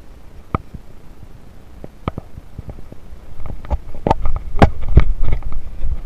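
Irregular knocks, thumps and low rumbling from an action camera being jostled and rubbed as its wearer walks, getting denser and louder about halfway through.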